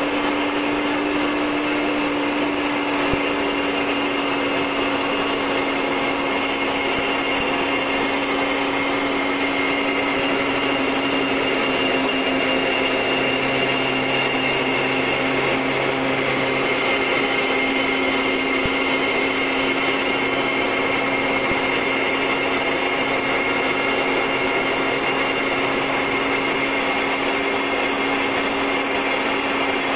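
Short Tucano T1 in flight: the steady drone of its Garrett TPE331 turboprop engine and propeller, with a held whine over a broad rushing noise. A lower hum joins about a third of the way in and fades near the end.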